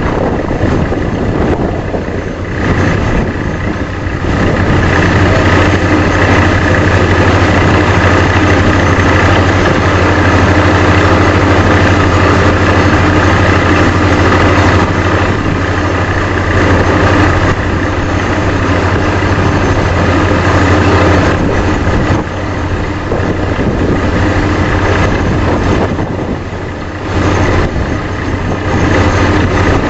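Loud, steady running of a truck-mounted drilling rig at work. It is fed 400 psi air by a Vesta VA650X2 diesel-driven portable screw compressor, with a steady deep hum under a dense mechanical noise. The noise eases briefly twice in the last third.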